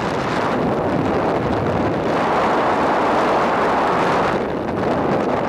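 Wind rushing over the microphone while moving along a road, a steady noisy rush that swells louder for about two seconds in the middle.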